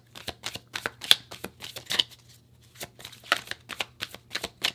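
A tarot deck being shuffled by hand: quick, irregular card slaps and rustles, with a brief pause about halfway through.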